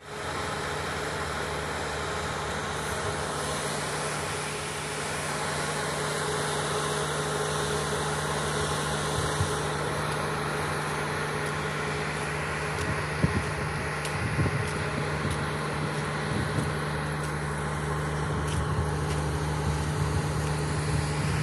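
Steady low drone of diesel engines and heavy machinery in a container terminal, with occasional low thumps in the second half.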